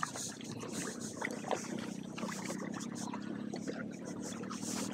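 Water trickling and dripping around a kayak, with scattered small ticks and knocks over a steady hiss.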